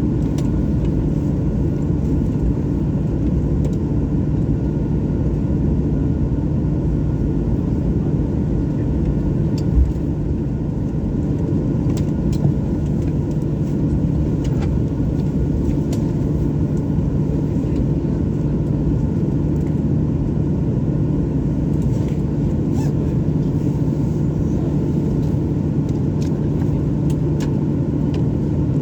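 Steady low rumble of a jet airliner's engines, with a constant hum and no change in pitch or level.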